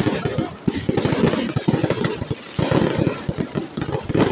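Fireworks going off in a rapid, dense barrage of pops and crackles, many small bursts overlapping, with a brief lull about halfway through.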